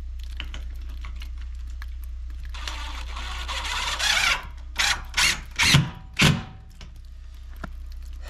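A cordless drill driving screws into the shed's framing: one run of about a second and a half, then about five short spurts. A steady low hum sits underneath.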